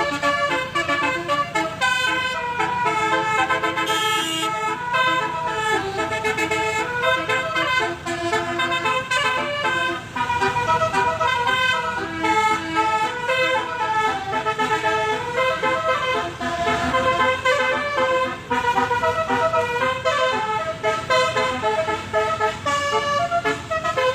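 Basuri telolet horn, a multi-trumpet musical vehicle horn, playing a continuous tune of quick, changing notes.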